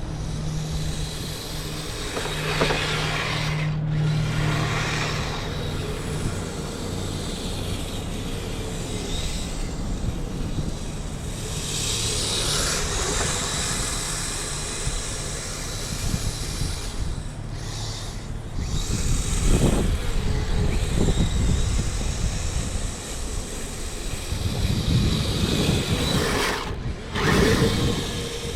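Twin electric motors and belt tracks of a 1/12-scale Blizzard 2.0 tracked RC vehicle running, the sound surging up and easing off several times as it is driven.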